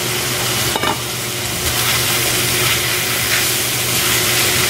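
Diced potatoes and minced pork sizzling in oil in a nonstick wok while a slotted spatula stirs and scrapes them around the pan. A single sharp knock a little under a second in, and the sizzle gets a bit louder from about two seconds on.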